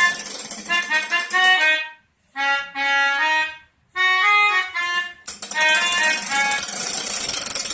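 Toy pianica (melodica) played in quick runs of short reedy notes, imitating an Indonesian 'telolet' bus-horn tune. The notes stop briefly about two seconds in and again near four seconds, and a hiss sits under the notes in the second half.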